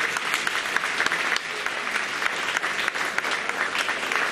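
Audience applauding steadily, a dense patter of many hands clapping, for an award recipient.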